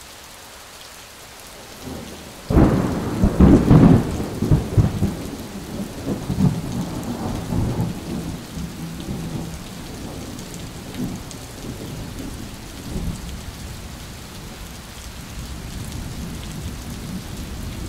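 Steady rain, with a clap of thunder about two and a half seconds in that rumbles on for several seconds and slowly fades.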